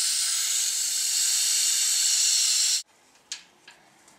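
Air hissing steadily out of a radiator's bleed valve as the radiator refills with water, venting the trapped air. The hiss cuts off suddenly a little under three seconds in, followed by a couple of light clicks.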